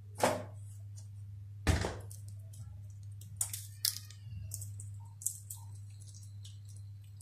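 Green cardamom pods being cracked open between the fingers: two loud sharp cracks in the first two seconds, then a run of lighter clicks and snaps, over a steady low hum.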